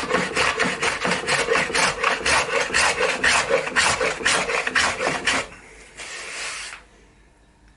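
Quick, even back-and-forth strokes of a hand tool across a wooden board, about four a second, smoothing the surface. They stop about five and a half seconds in, and one longer stroke follows.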